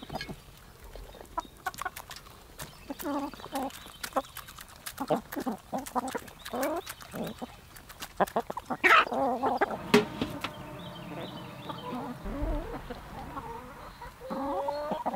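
A flock of backyard hens clucking and calling in short bursts as they crowd round a handful of dried grubs, with many sharp clicks of beaks pecking.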